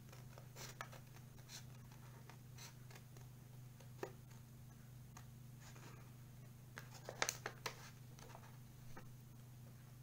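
Scissors cutting paper, with the sheet handled between cuts: scattered short snips and rustles, the loudest quick cluster of snips about seven seconds in, over a steady low hum.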